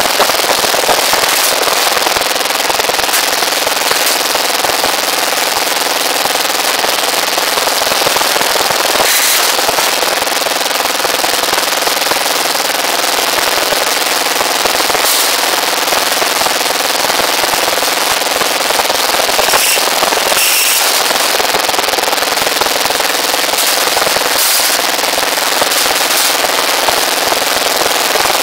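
Electric rebar bending machine running while it bends steel reinforcing bar. A loud, steady rattling clatter with a faint motor hum underneath, and a few sharper clanks now and then.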